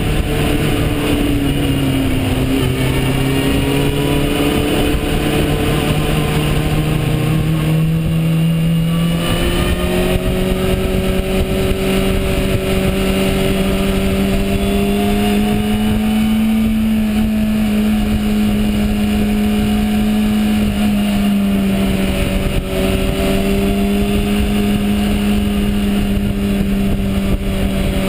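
Suzuki GSX-R750 motorcycle engine running steadily under way at town speed. Its note eases down and up with the throttle and steps up about a third of the way through, over wind and road noise.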